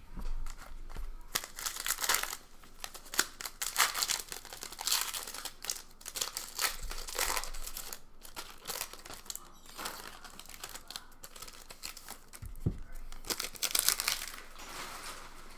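A foil wrapper on a baseball card pack being torn open and crinkled, with paper cards rustling, in irregular crackling bursts.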